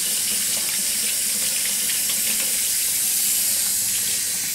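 Kitchen faucet running a steady stream of water into a stainless steel sink, with a few small splashes.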